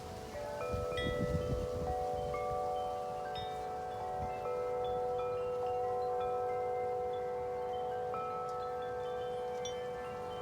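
Wind chimes ringing in strong wind: the tubes are struck again and again, their long ringing tones overlapping. Gusts rumble on the microphone in the first couple of seconds.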